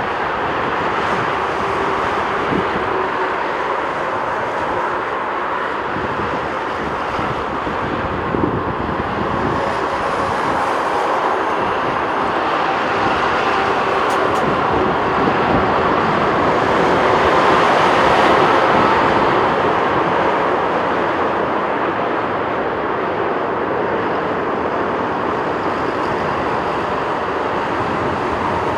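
Jet airliner on approach to land, its engine noise swelling gradually to a peak about eighteen seconds in and then easing off.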